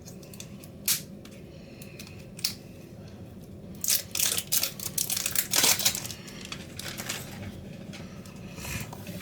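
Packaging being torn open and crinkled by hand, with two sharp clicks before it and a run of loud rustling tears between about four and six seconds in.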